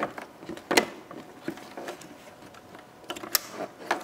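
A few sharp clicks and rattles of plastic from hands handling a headlight bulb socket and its wiring connectors, the loudest about three quarters of a second in and a few more after three seconds.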